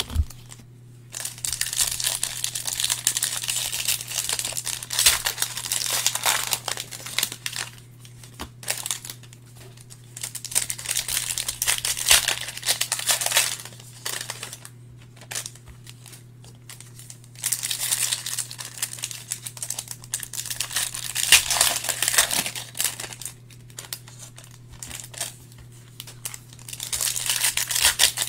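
Foil wrappers of Panini Optic basketball card packs being torn open and crinkled by hand, in several stretches of a few seconds each with short pauses between. A steady low hum runs underneath.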